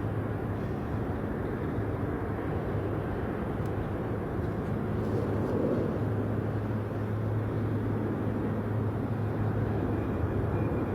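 Steady low rumble of aircraft engines with a constant low hum. It holds at one level, with no rise or fall.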